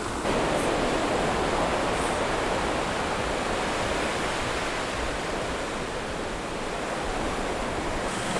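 Surf washing up a sandy beach: a steady rush of breaking waves that gets a little louder about a quarter second in.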